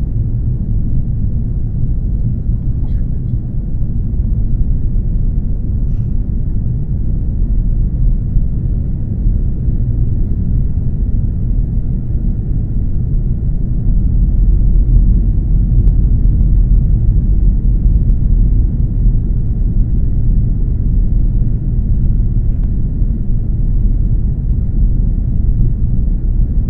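Airliner cabin noise inside an Airbus A330: a steady, deep rumble of engines and airflow heard from a window seat, growing louder about halfway through.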